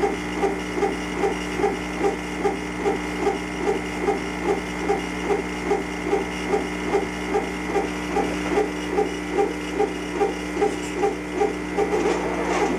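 CO2 laser engraver raster-engraving on a rotary attachment. The head's stepper motors whirr as it sweeps back and forth, about two and a half strokes a second, over a steady machine hum. The back-and-forth stops near the end as the job completes.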